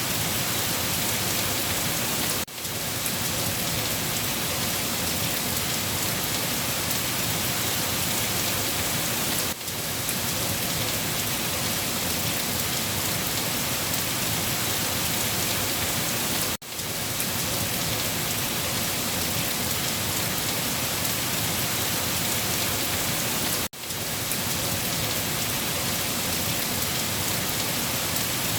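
Steady, dense rain hiss with no thunder or voices. The level dips briefly about every seven seconds.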